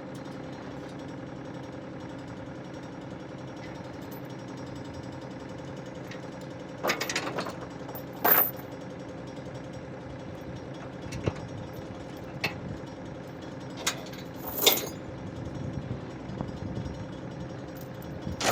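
An ASV RT-40 compact track loader's diesel engine running steadily, with a series of sharp metal clanks and bangs, the loudest about eight and fifteen seconds in.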